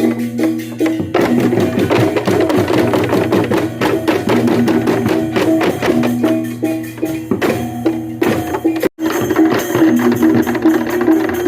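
Balinese tektekan percussion: many bamboo slit-drums struck in a fast, dense interlocking rhythm over a few sustained pitched tones. The sound drops out abruptly for a split second about nine seconds in.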